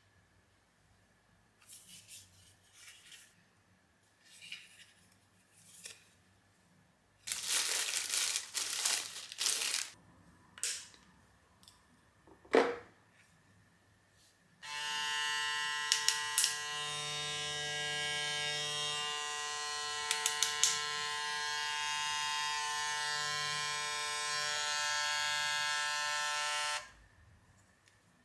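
Gamma+ X-Ergo cordless clipper's magnetic motor switched on and running with a steady buzzing hum for about twelve seconds, then switched off. Before it, packaging crinkles for a few seconds and there is one sharp click.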